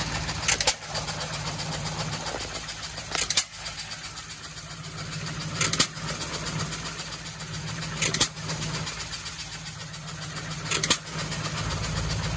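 John Deere hit-and-miss stationary gas engine running under its own power, firing with a sharp pop about every two and a half seconds (five times) and coasting on its flywheels with a steady low running sound in between.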